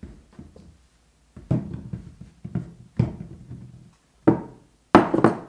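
Whole pomegranates and a lemon set down one after another on a wooden table: a series of dull thuds, about one every second or so, the last two loudest.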